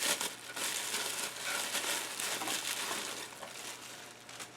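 Packaging rustling and crinkling as a camcorder is lifted out of it. The rustle is busiest for the first three seconds, then dies away.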